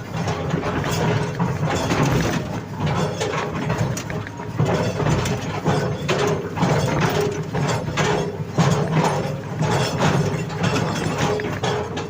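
Sany hydraulic excavator working: the diesel engine runs steadily under load, with a recurring hydraulic whine and many clanks and rattles of metal as the arm and bucket dig.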